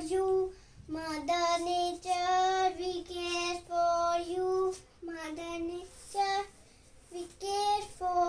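A young child singing solo in a series of held notes, phrase by phrase, with short breaks between phrases.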